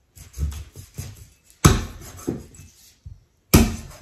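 Meat cleaver chopping raw chicken wings on a wooden end-grain chopping block: two heavy chops about two seconds apart, with softer knocks of the meat being handled in between.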